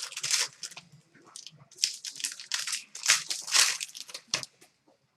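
Trading-card pack wrappers crinkling and tearing in irregular bursts, with cards being handled as packs are opened.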